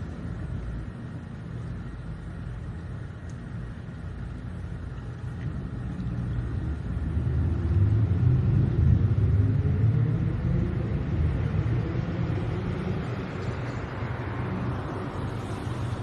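Low, steady engine-like rumble that grows louder from about seven seconds in and eases off after about eleven, with a faint hum above it that shifts in pitch.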